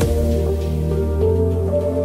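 Background music: soft new-age instrumental with sustained chords over a deep bass note that shifts about a second in.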